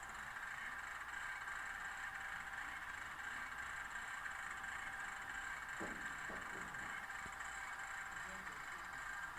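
HO scale ScaleTrains AC4400CW model locomotive's sound decoder playing its handbrake sound effect through the model's small speaker, a faint steady mechanical sound with a couple of light clicks about six seconds in.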